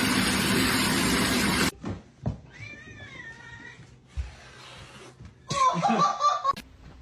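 A loud rushing noise that cuts off abruptly under two seconds in, then a cat meowing twice: a quiet, wavering meow, and a louder one near the end.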